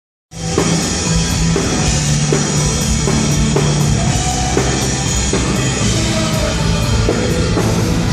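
Live rock band playing loud, with a steady drum-kit beat under heavy guitars and bass, cutting in sharply just after the start.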